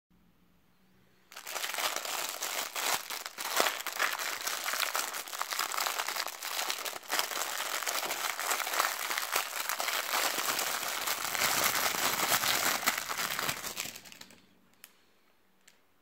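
Clear plastic packaging bag crinkling and crackling steadily as it is handled and pulled open by hand, then stopping, with a few faint clicks near the end.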